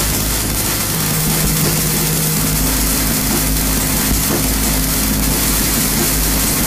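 Harsh electronic noise: a loud, steady wall of hiss and rumble with a few held low hums running through it.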